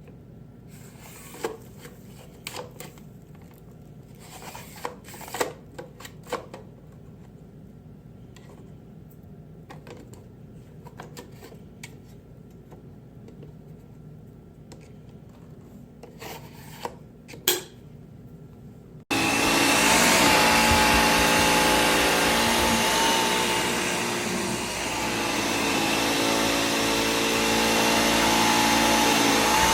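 Scattered clicks and knocks from handling, then about two-thirds of the way in the Bissell Air Ram cordless vacuum switches on suddenly and runs steadily with a whine, dipping slightly in level partway through.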